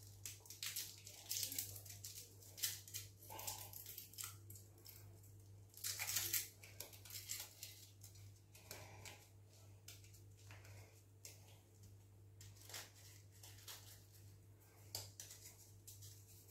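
Faint crinkling and crumbling of chicken OXO stock cubes being unwrapped from their foil and crumbled by hand into a slow cooker pot, in scattered small crackles over a low steady hum.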